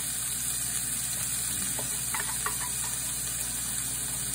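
Onions, bell peppers and crumbled plant-based sausage frying in a pan: a steady sizzling hiss, with a few soft ticks about halfway through as diced potatoes are added.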